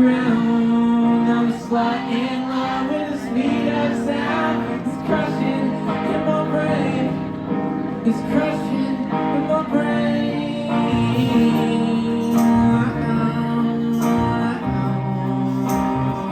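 Live band performing a pop-rock song, with guitar chords and singing over it.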